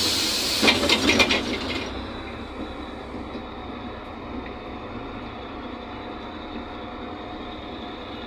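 Interior of a NefAZ 5299 city bus with a Cummins ISBe diesel: a loud hiss fades away in the first half second, a brief burst of rattling clunks follows about a second in, and then the bus's steady running noise, with a faint steady whine, carries on.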